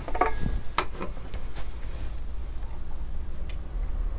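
A few light clicks and taps from a soldering iron, wires and parts being handled on a valve radio's metal chassis, most in the first second and a half and one more near the end, over a steady low rumble.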